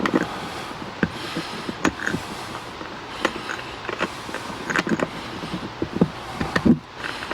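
Irregular clicks, knocks and creaks as a bolt is fiddled by hand into the cat tree's post, trying to get it to start threading.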